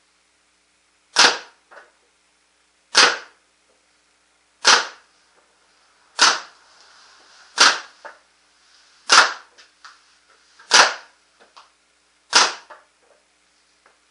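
Proto Matrix Rail paintball marker firing eight single shots, evenly paced about one and a half seconds apart, each a sharp pop from the compressed-air burst, with a fainter knock after some of them. These are the last shots on the remaining air of a nearly spent tank.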